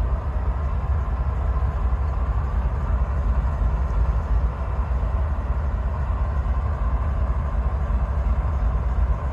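Iowa Interstate 508, a GE ES44AC diesel-electric locomotive, idling steadily after start-up with a deep, even rumble.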